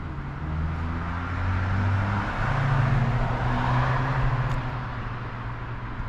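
Road traffic: a vehicle passing on the road outside, a low engine hum with tyre hiss that swells in the middle and then fades.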